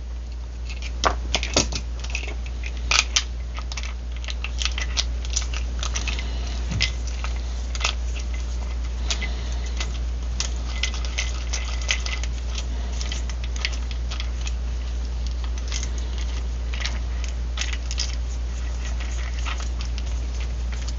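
Small metal clamp parts being handled and fitted back together by hand: a dense run of light clicks, taps and rattles, with a few louder clicks in the first few seconds.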